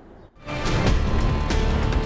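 Broadcast news segment theme music starting abruptly about half a second in, with a heavy low end, sharp percussive hits and held tones underneath.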